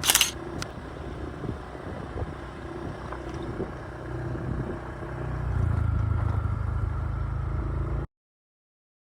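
An engine running with a steady low rumble that grows louder about five and a half seconds in, then cuts off suddenly. A brief loud burst comes right at the start.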